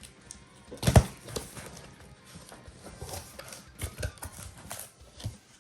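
A cardboard shipping box being opened and its contents handled: irregular knocks, taps and rustles, with a loud thump about a second in and a run of knocks near the end.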